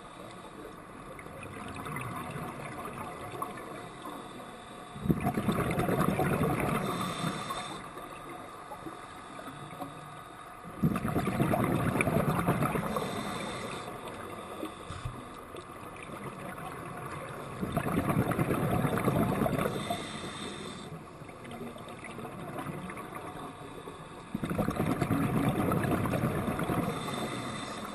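Scuba diver's exhaled breath bubbling out of the regulator in four bursts about six seconds apart, each lasting two to three seconds, with quieter breathing noise between them, heard underwater through a camera housing.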